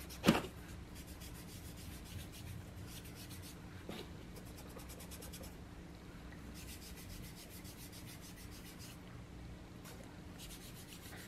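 Round foam finger dabber rubbed over cardstock, blending ink in quiet, quick scrubbing strokes that come in several runs of a second or two. A sharp tap just after the start, as the dabber is pressed onto the ink pad, is the loudest sound.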